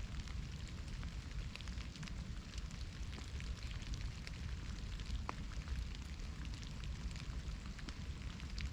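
Steady rain in a forest, many separate drops ticking over an even hiss, with a low rumble underneath.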